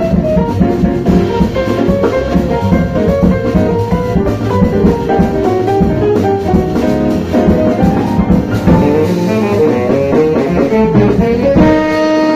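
Small jazz group playing: saxophone lines over a drum kit, settling on a held chord near the end.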